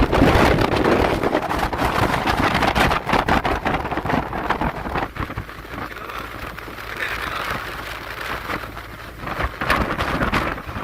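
Wind rushing and crackling over the microphone of a Honda Forza 750 scooter at road speed, with the scooter's engine humming steadily underneath. The wind noise eases about halfway through.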